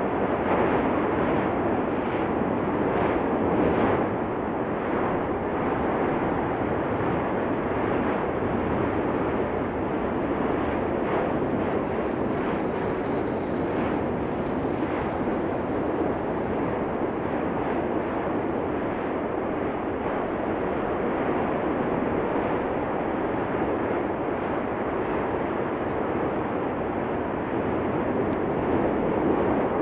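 Cumbre Vieja volcano's fissure eruption: a steady, continuous rush of noise that barely changes in level.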